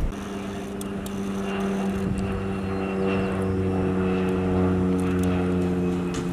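Single-engine propeller floatplane flying overhead, its propeller and engine giving a steady drone.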